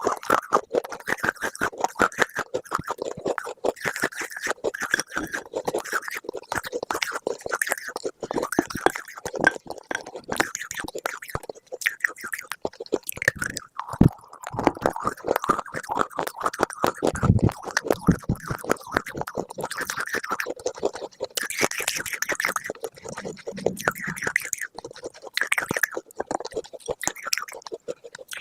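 Close-miked chewing of crunchy food: dense, irregular crackling crunches.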